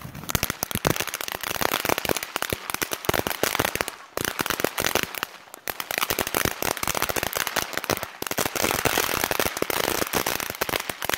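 Ground fountain firework crackling: a dense, rapid run of sharp small pops as it sprays sparks, with short lulls about four and five and a half seconds in.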